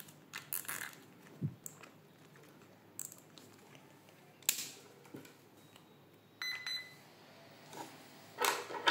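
Plastic cable ties being pulled tight and their tails snipped with small scissors around RC truck wiring. Scattered light clicks, with a sharp snip about four and a half seconds in and a brief high-pitched beep-like tone a little after six seconds.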